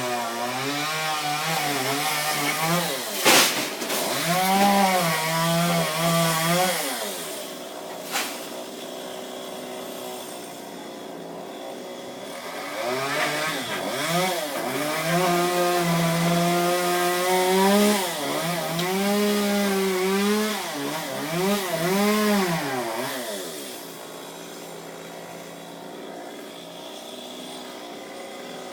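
Chainsaw cutting palm wood in two long stretches, its engine pitch rising and dipping under load, dropping to a lower, steadier idle between them and near the end. A sharp crack about three seconds in and a shorter knock about eight seconds in.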